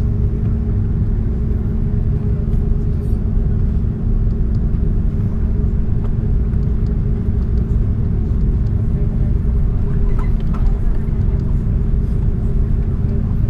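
Cabin noise inside an Airbus A330 taxiing: a steady low rumble from the idling engines and the rolling aircraft, with a constant hum held through it.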